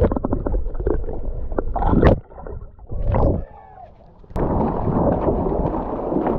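Water sloshing and splashing in a shallow river, muffled at first with the microphone dipped under the surface, then a steady rush of moving water from about four seconds in.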